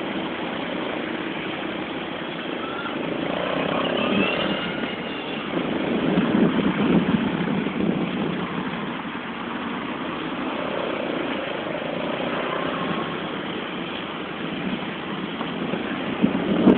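Motor vehicle engine and road noise running steadily, swelling louder about six seconds in and again near the end.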